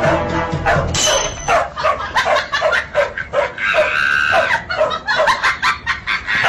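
A dog barking in quick short yaps, about three to four a second, with a longer, higher whine around the middle. Music plays for about the first second before the barking starts.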